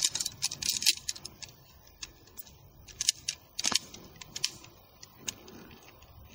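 Aluminium tent-pole sections clicking and clinking against each other as they are fitted together into a pole. It is a run of sharp metallic clicks, busiest in the first second, then scattered and sparser.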